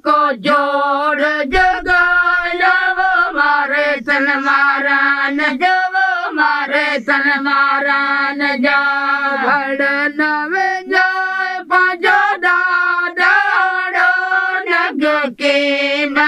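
A group of women singing a folk song, with long held notes that slide between pitches.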